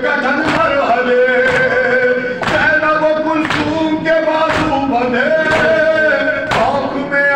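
A man chanting a Shia noha (lament) in long held lines through a microphone and loudspeaker, with a group's chest-beating (matam) slaps landing in time about once a second.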